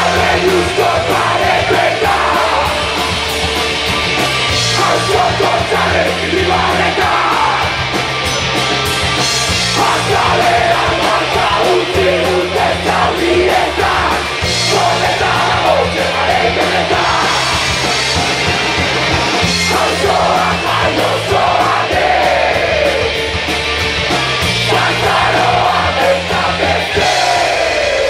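Live rock band playing loud, with a bass line stepping between notes under guitar, drums and singing.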